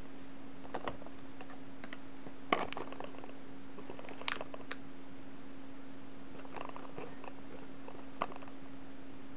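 Handling of a cardboard blind box in shiny wrapping: light crinkles and sharp little clicks as it is picked up and turned over in the fingers, the sharpest about two and a half seconds in. A steady low hum runs underneath.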